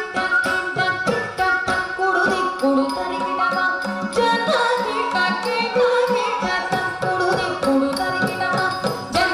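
Carnatic music accompanying Bharatanatyam dance: mridangam strokes in a quick rhythm under a held melody line.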